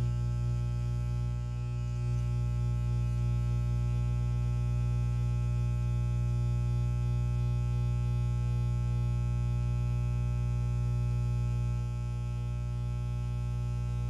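Black and silver Wahl electric hair clipper running, buzzing steadily with no cutting load.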